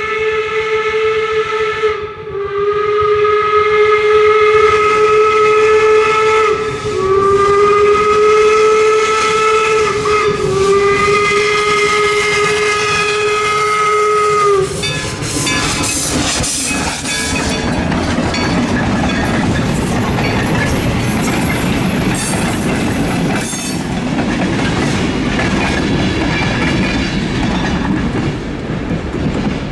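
Steam whistle of the 4-4-0 steam locomotive No. 17 'York' sounding in long blasts with short breaks between them, stopping about halfway through. The train then rolls past in a steady noisy rumble.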